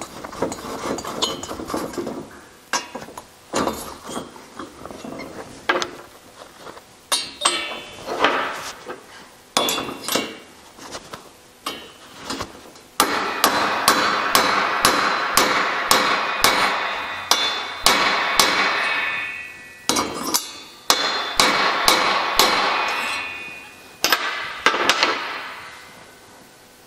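Hammer blows on a hardened steel valve-seat driver, tapping a chilled valve seat into a heated aluminium Porsche 911 cylinder head. Scattered knocks and clinks at first, then from about halfway a run of ringing metal strikes, about two a second, that stops shortly before the end.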